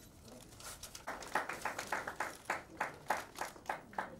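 A few people clapping hands at a steady pace, about three claps a second, beginning about a second in.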